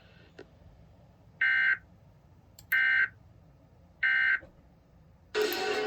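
EAS end-of-message signal: three short bursts of warbling digital SAME data tones, about a second and a half apart, closing the tornado warning broadcast. Near the end the station's music cuts back in.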